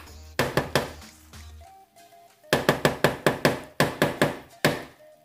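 A wooden spatula knocking on the rim of a pan in sharp taps: three about half a second in, then a quick run of about a dozen from about two and a half seconds in, over quiet background music.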